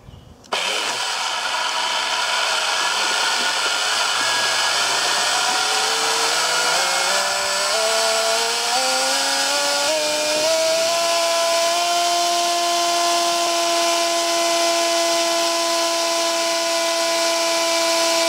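M-Jet 35 3D-printed jet drive pump starting up on a thrust test stand: a loud rush of water jet spray, with the pump's electric motor whine climbing in steps as the speed is raised. About eleven seconds in it reaches full power, around 20,000 rpm and 7.4 kg of thrust, and holds a steady pitch.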